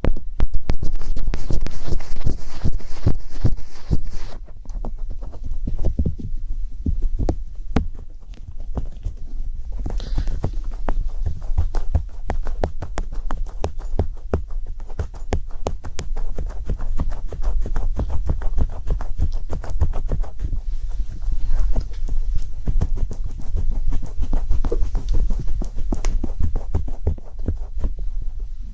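Rapid, close-up tapping and scratching noises, many small clicks a second over a low rumble, with a brief hissy rustle in the first few seconds.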